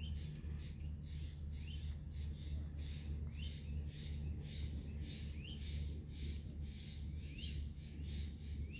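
A bird calling over and over, short rising chirps about twice a second, over a steady low hum.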